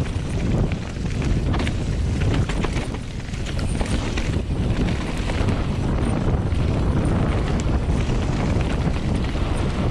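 Wind buffeting the camera microphone while a Specialized Enduro 29 mountain bike rides fast downhill on a dirt trail, with a steady low rumble of tyres over dirt and leaves and frequent rattling clicks from the bike.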